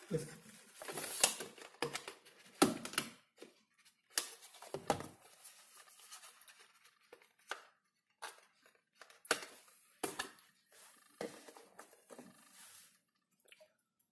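Irregular handling noises: taps, clicks and rustling as a smartphone, its cardboard box and the packing items beside it are moved about and the SIM ejector pin is picked up.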